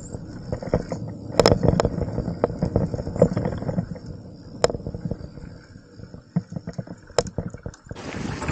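Mountain bike rolling slowly on a dirt trail: irregular clicks, knocks and rattles from the bike and tyres on the ground. Near the end, wind rushing over the camera microphone picks up again.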